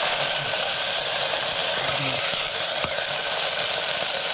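Beans frying in hot oil in an aluminium pressure cooker: a steady, dense sizzle, with a single faint click about three seconds in.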